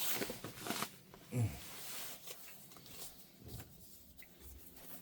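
Handling of empty plastic ink cartridges on a workbench: scattered small clicks and rustles, with one louder low thump about a second and a half in.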